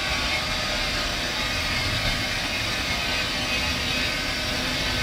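Paper recycling mill machinery running with a steady, even din.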